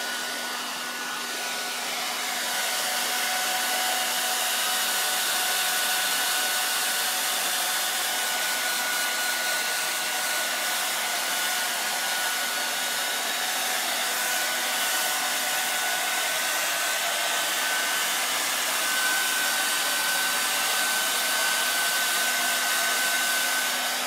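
Remington hand-held hair dryer running steadily: a constant rush of blown air with a thin steady whine under it.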